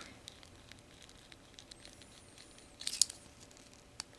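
Small plastic model-kit toy parts clicking and rattling as they are worked apart by hand, with a sharper cluster of clicks about three seconds in.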